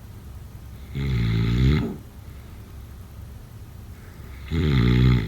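Snoring: two pitched snores about three and a half seconds apart, each lasting just under a second, over a steady low hum.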